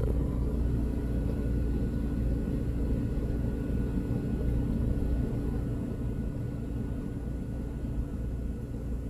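Steady low rumble with a faint, even hum running under it; no distinct events.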